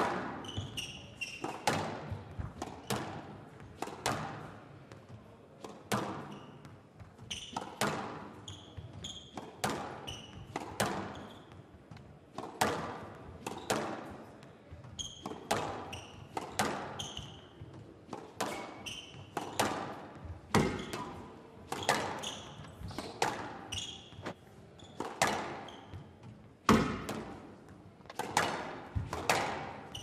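Squash rally: the ball cracking off rackets and the walls about once a second, with squash shoes squeaking on the court floor between shots.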